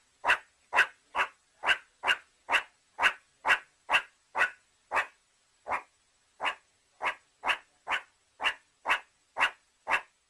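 Meerkat giving a steady series of short, sharp barking calls, about two a second, with a brief pause a little past the middle.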